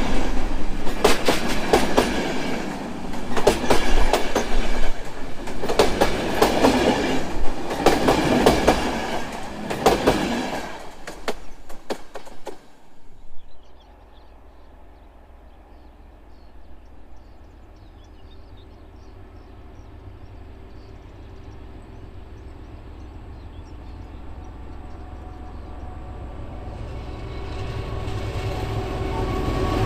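A diesel-hauled train passes close by for about the first 13 seconds, its wheels clacking rhythmically over the rail joints. The sound then drops off suddenly to a faint low rumble, which grows steadily louder toward the end as another train approaches.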